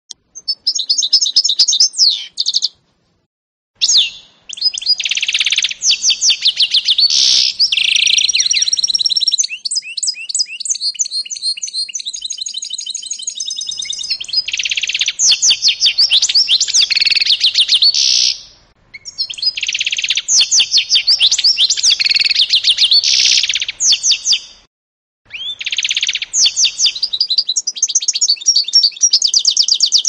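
Canary × European goldfinch mule singing: long runs of fast, high-pitched trills and twittering phrases, broken by three brief pauses.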